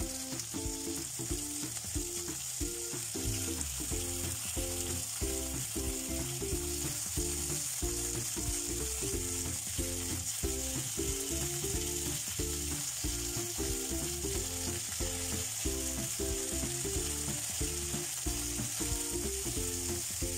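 Chicken wings frying in hot oil in a nonstick pan: a steady, high sizzling hiss. Beneath it runs an evenly repeating pattern of short low notes.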